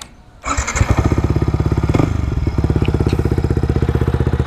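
Yamaha MT-15's single-cylinder engine starting about half a second in and settling into a steady idle, with a rapid, even exhaust beat through a replica Akrapovic full-system exhaust.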